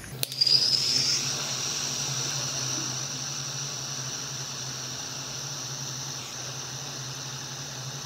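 Handheld heat tool switched on with a click, then hissing steadily as it blows hot air onto the heat-shrink tubing of a crimped spade connector, with a high steady whine over the hiss, loudest in the first second.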